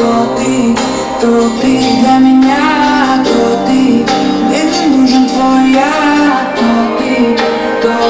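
Pop song with a woman singing, played loud through Pride Solo mini midrange car-audio speakers on a demo wall.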